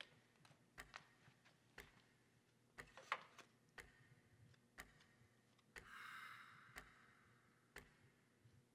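Faint clock ticking, about once a second, with a brief soft rustle about six seconds in.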